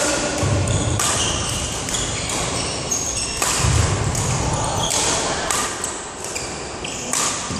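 Badminton rackets striking shuttlecocks in a rapid series of sharp hits, roughly one or two a second, ringing in a large echoing sports hall. Short shoe squeaks on the court floor and a couple of heavy footfalls come in between.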